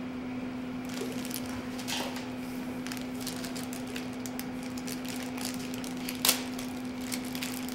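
A plastic snack wrapper rustles and crinkles in someone's hands over a steady low hum, with one sharp click about six seconds in.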